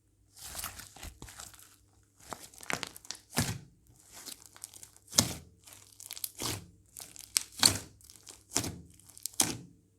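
Slime being squeezed and pressed by hand: a string of crackling, squishy bursts about one a second, some ending in sharper snaps, the loudest about a third of the way in and again near the end.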